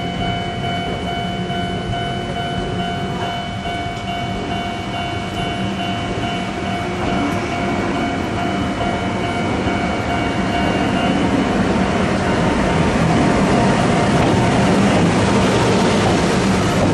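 Electric-locomotive-hauled passenger train running along the line, with a steady whine over the rumble of the wheels. The whine fades about two-thirds of the way in, while the rumble grows louder to the end.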